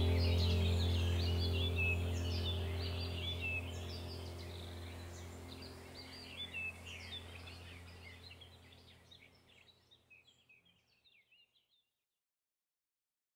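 Background ambient music, a low steady drone with birdsong chirping over it, fading out gradually to silence about ten seconds in.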